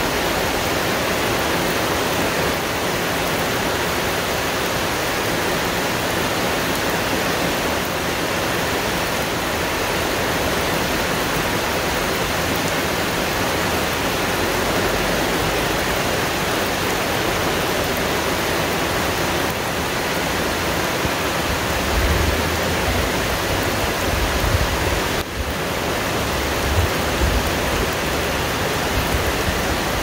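Heavy rain falling steadily on dense forest foliage, a continuous even hiss. From about two-thirds of the way through, gusts of wind add irregular low rumbles.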